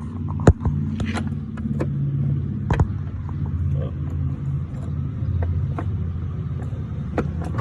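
A motor vehicle engine running with a steady low hum, with a few sharp clicks and knocks on top.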